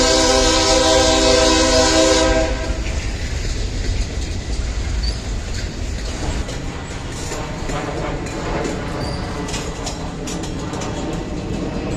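Train horn sounding a steady multi-note chord, cutting off about two and a half seconds in. A train then rolls past with a steady rumble and repeated wheel clicks over the rail joints.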